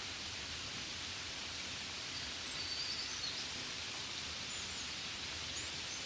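Steady hiss of gentle rain falling. A few faint, short, high chirps come through about two to three seconds in and again near the end.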